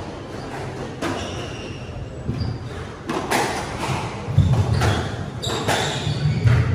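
Squash ball being struck in a rally that begins about three seconds in: a string of sharp smacks of racket on ball and ball on the court walls, each with a short echo.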